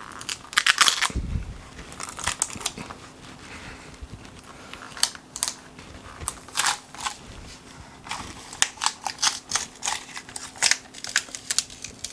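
Sharp cracks and snaps in several clusters as a super-glued wooden strip is worked loose from the back of an epoxy-coated panel: the glue bond breaking. There is a dull knock about a second in.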